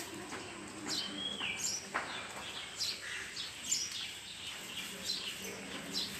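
Short, high chirping calls repeated every half second to a second, most of them sweeping quickly down in pitch.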